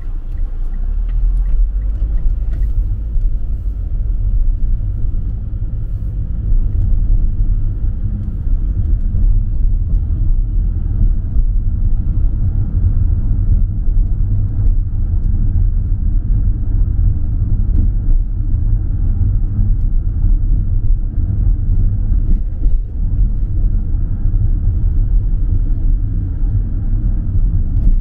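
Inside a moving car: a steady low rumble of engine and tyres on the road.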